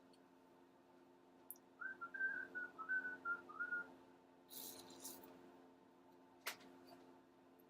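A person whistling a short run of about eight quick notes, followed by a brief high scraping hiss and one sharp click from the bench work.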